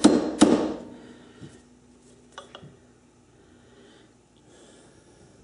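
Two sharp hammer blows on a hand chisel cutting into an aluminum workpiece, about half a second apart right at the start, ending a steady run of strikes. Then only a few faint light clinks.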